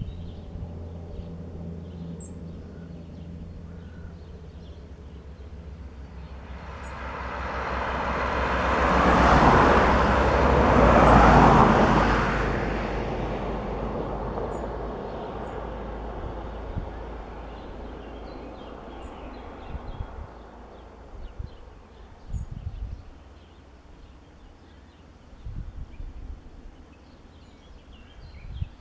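A vehicle passes by: its rushing noise swells over several seconds, is loudest about ten seconds in, and fades away, over a steady low engine hum that stops about twelve seconds in.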